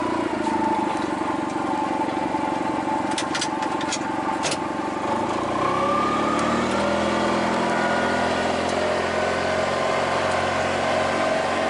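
A motor vehicle engine running steadily, its pitch rising about halfway through as it picks up speed. A few sharp clicks sound around three to four seconds in.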